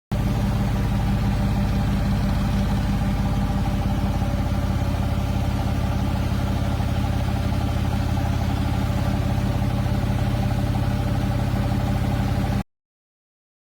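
Front-loading washing machine running with a steady motor hum and low drone, starting and cutting off abruptly.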